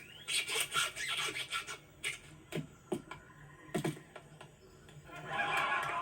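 Animated-film sound effects: a scatter of short scrapes, rubs and clicks with a few soft thuds, then a louder rushing noise that swells up about five seconds in.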